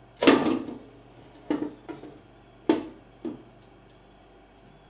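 Metal CVT cover of a Kawasaki Teryx knocking and clanking against the surrounding engine case and frame as it is worked loose by hand. There are about five sharp knocks, the first the loudest.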